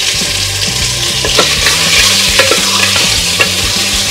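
Chicken drumsticks sizzling in hot oil in a stainless steel pressure cooker, stirred with a wooden spatula that scrapes and knocks against the pot several times.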